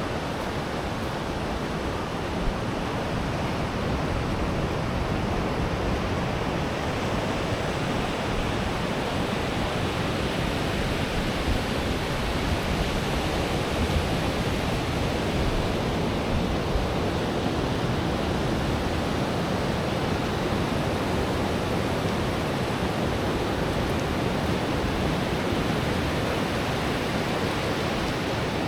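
Pacific surf breaking on a sand beach, a continuous wash of waves that swells slightly and eases without pause.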